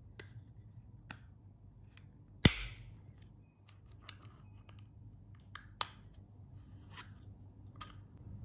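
Hinged plastic flip-top lid on a drinking-bottle cap being worked open and shut. One sharp plastic snap about two and a half seconds in is the loudest, with a clear click near six seconds and lighter clicks and taps of hands on the plastic in between.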